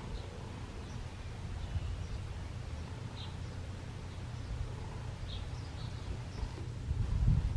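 Faint, scattered bird chirps over a low wind rumble on the microphone, with a stronger gust near the end.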